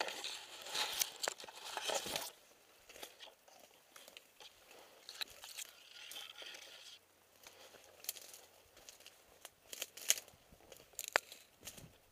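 Rustling and crunching of a person moving, loudest during the first two seconds, with a few sharp clicks near the end.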